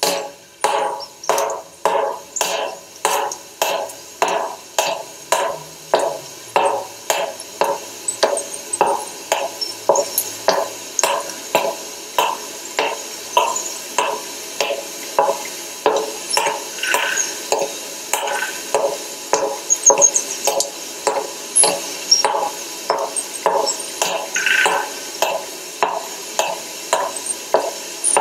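A steady rhythmic pulse of short, pitched knocks, a little over two a second, each dying away quickly, with a few faint high chirps over it.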